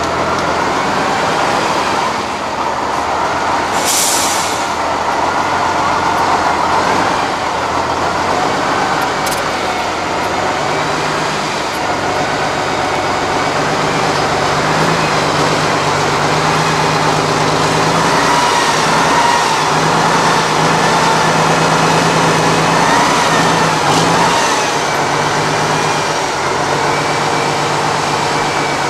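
Diesel engine of an 8x8 off-road trial truck working under load at crawling speed, its revs rising and falling as the truck climbs through deep ruts. A short hiss sounds about four seconds in.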